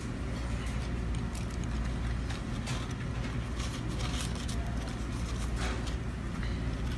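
A steady low background rumble, with scattered light crackles and clicks as fries and a red paper fry carton are handled and eaten.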